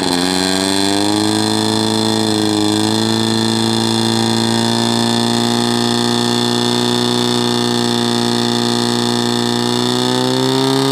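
Portable fire pump's petrol engine revving up at the start, then running steadily at high revs while it pumps water into the hoses, with a slight dip about two seconds in and a small rise near the end.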